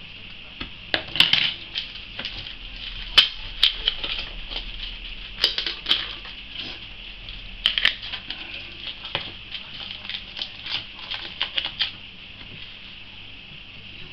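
Irregular light clicks and taps of a plastic shipping cup being handled, turned over and set down in a plastic tub, with a faint steady low hum underneath. The clicking stops about two seconds before the end.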